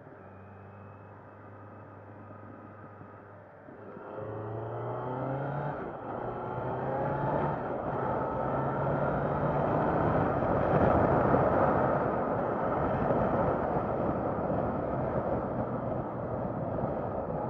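Kawasaki Z900's inline-four engine running steadily, then from about four seconds in accelerating up through the gears, its note rising and dropping back at each upshift. Wind rush on the microphone grows loud as the bike speeds up.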